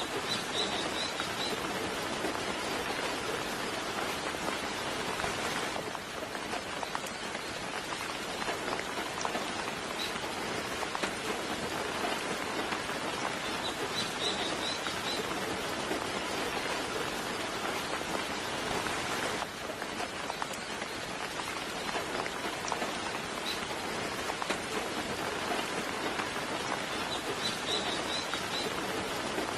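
Soft, steady rain falling, with short bursts of high bird chirps three times: about a second in, midway, and near the end.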